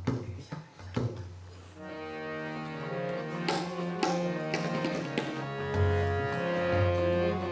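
Tabla strokes at first, then a harmonium comes in about two seconds in with held, reedy chords, and the tabla adds a few more strokes over it. No singing.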